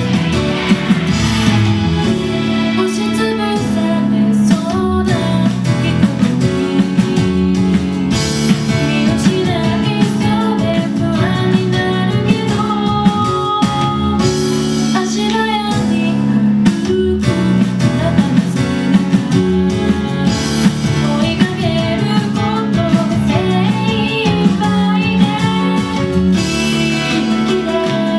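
Pop song playing: singing over strummed guitar with a steady beat.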